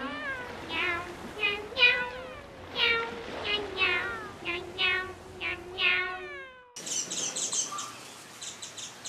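A cat meowing over and over, about ten meows, mostly falling in pitch, some overlapping and drawn out. About seven seconds in it cuts to small birds chirping rapidly.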